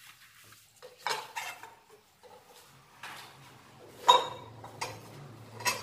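A freshly cut piece of steel clinking and knocking against the metal miter saw table as it is handled and picked up: about half a dozen sharp metallic clinks with a short ring, the loudest about four seconds in.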